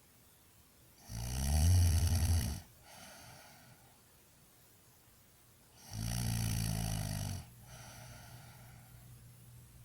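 Snoring: two loud, low buzzing snores about five seconds apart, each lasting about a second and a half and followed by a softer, breathy sound.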